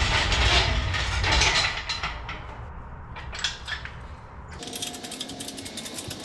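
Engine crane being worked to lift a car's engine: a fast, even run of mechanical ratcheting clicks that starts about two thirds of the way in. Before it, a louder rushing noise for the first second and a half, then a few scattered clicks.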